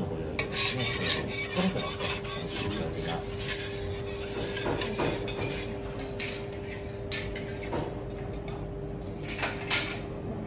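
Metal spatula scraping across a teppanyaki griddle in a run of short, irregular strokes, busiest in the first few seconds, over a steady low hum.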